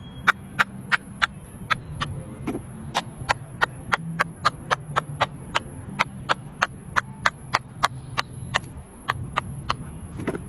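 Silicone pop-it fidget toy bubbles being pressed one after another, each giving a short sharp pop, at a steady pace of about three a second.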